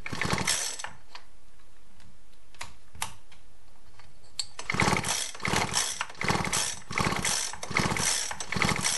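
Husqvarna 235R brush cutter's recoil starter pulled in quick short strokes, a little under two a second, from about halfway in. The starter ratchet rattles and the two-stroke engine turns over without firing while the old NGK spark plug is checked for spark. A short rattle and a few clicks come first.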